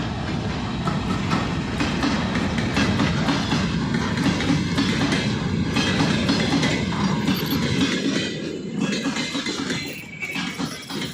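Train running over the rails: the steady rumble of the cars with wheels clattering over rail joints. It eases off about eight seconds in.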